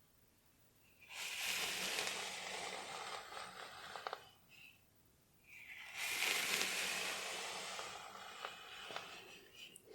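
Close-miked fingernails scratching through hair on a scalp, a dry rustling scratch in two long passes of about three seconds each, with short quiet pauses before each.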